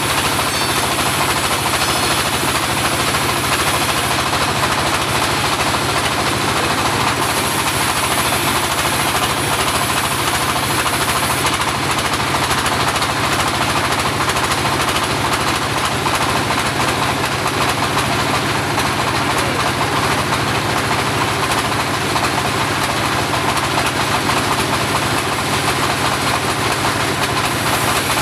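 Homemade portable bandsaw running steadily, a loud, unbroken mechanical drone with vibration.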